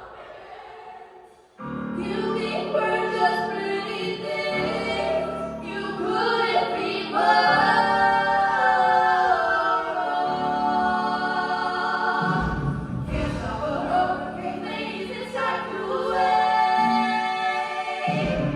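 Choir singing in harmony, coming in about a second and a half in after a quieter moment.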